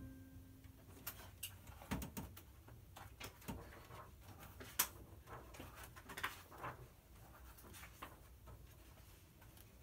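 The last piano note dies away, then faint scattered small clicks and taps, the sharpest nearly five seconds in.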